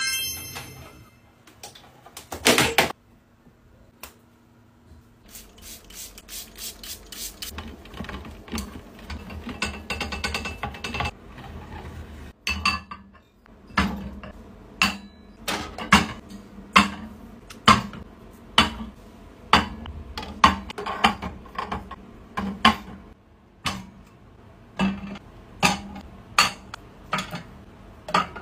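Skincare bottles of plastic and glass being picked up and set down on organizer shelves, giving sharp clicks and knocks. The knocks come about once a second through the second half.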